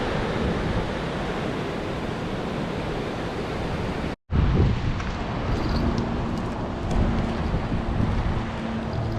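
Wind on the microphone and waves breaking on the beach. Just past four seconds the sound drops out for an instant and resumes, with a faint steady low hum under the wind.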